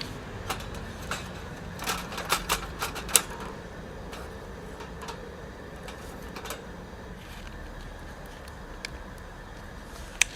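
Wood fire crackling, with irregular sharp pops that come thickest a couple of seconds in.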